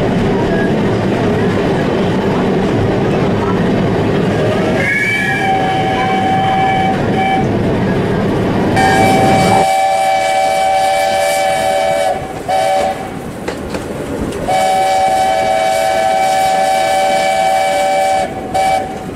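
Steam locomotive's chime whistle blowing in several blasts while the train runs. There is a short blast about five seconds in, then two long blasts each followed by a short toot, sounded on the approach to a level crossing. Under the first half the carriage's rail rumble is heard; it drops away about ten seconds in.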